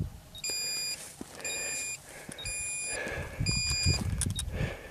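A high-power rocket's flight altimeter beeping out its recorded peak altitude digit by digit: four identical high-pitched beeps, each about half a second long, one a second. Crunching steps on stony ground come in over the second half.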